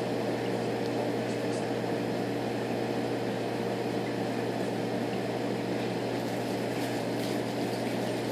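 Steady hum of reef aquarium equipment such as a pump, a low drone with a fainter higher tone over an even hiss.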